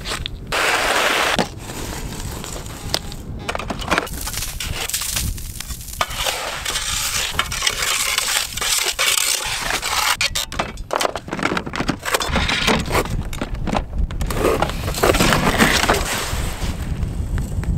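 Ice and slush crunching and scraping, with many sharp clinks and knocks of fishing gear being handled and packed, over a steady low rumble of wind on the microphone.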